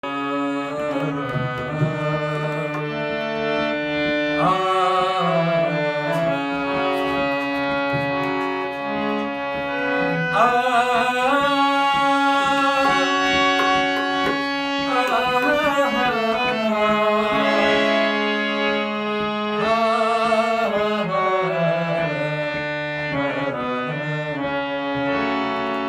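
Instrumental introduction to a Hindi devotional bhajan: a melody line in long held and wavering notes over a steady hand-drum rhythm.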